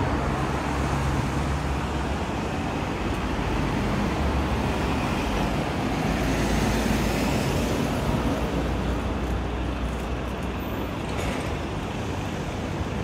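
Urban road traffic: a steady, low engine rumble from motor vehicles with general road noise around it.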